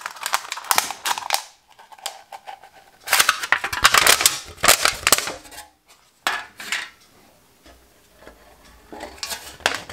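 Thin aluminium sheet from a drinks can crinkling and crackling in bursts as it is rolled back the other way on a table to flatten it and then handled. Near the end, scissors cut into the sheet.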